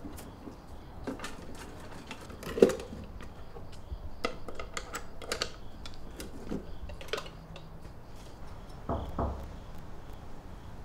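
Scattered clicks and knocks of small objects being handled, including a small wooden box being opened on a table. The sharpest click comes about two and a half seconds in, and two dull thumps come near the end. Crickets chirp faintly throughout.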